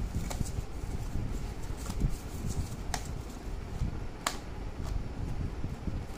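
Crayons clicking and rattling against each other and their plastic box as a child's fingers pick at them: a few scattered sharp clicks, the loudest about four seconds in.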